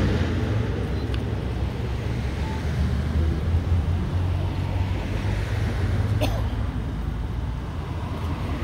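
Road traffic going past over a steady low engine rumble, with one faint click about six seconds in.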